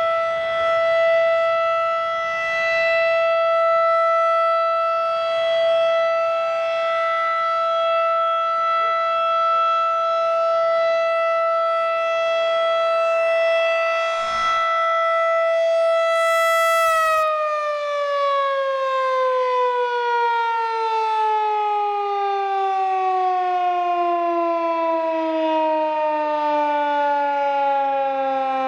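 Federal Signal 2001-DC outdoor warning siren sounding a steady single tone for its scheduled test. About 17 seconds in it shuts off and winds down, its pitch falling steadily and slowly.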